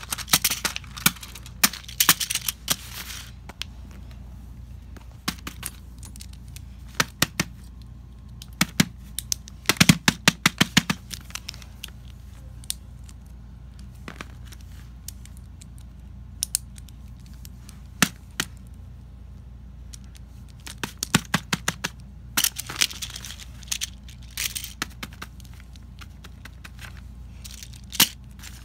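Fidget toys, among them an infinity cube, being handled and set down on paper sheets: scattered clicks and taps in bunches, with some paper rustling.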